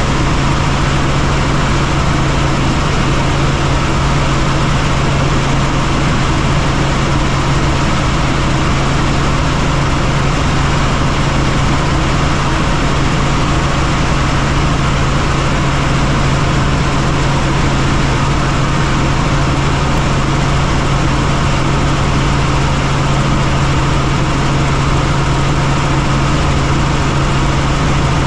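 Helicopter in flight: a loud, steady drone of engine and rotors, a strong low hum over an even hiss, unchanging throughout.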